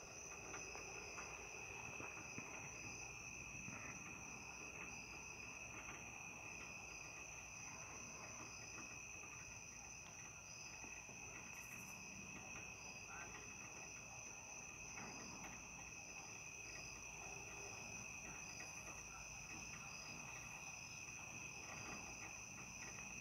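Crickets and other night insects calling together, faint: steady high trills, with one call that pulses on and off over them.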